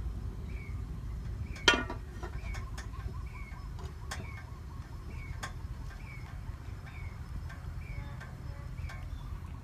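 Aluminium pot lid set down on a cooking pot with a single metallic clank about two seconds in, followed by a few light taps, over a steady low rumble. A short high chirp repeats every half second or so throughout.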